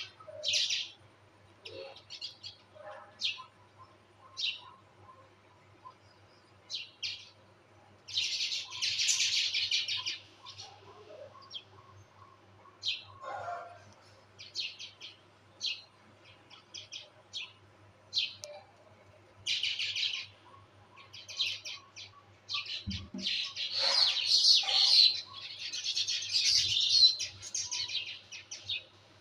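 Small birds chirping: short, high chirps throughout, with a burst of rapid, dense chirping about eight seconds in and a longer stretch of it near the end.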